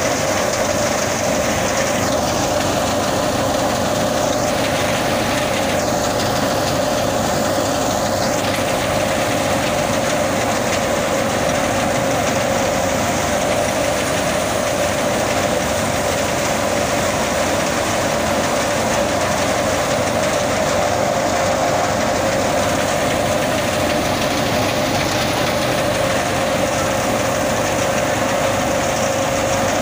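Khoski wheat thresher running steadily as wheat sheaves are fed into it, giving a loud, even mechanical hum with a steady drone that does not change.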